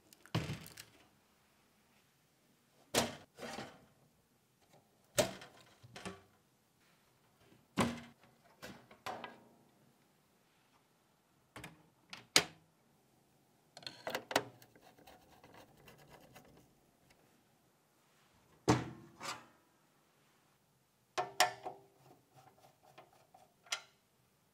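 Irregular clicks, knocks and clunks of PC hardware being handled and fitted together, with a few seconds of rubbing or sliding in the middle.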